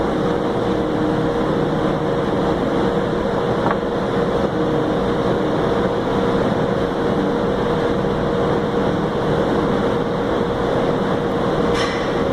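Steady machinery drone with a constant hum, the background noise of a cabinet shop. A brief faint click comes near the end.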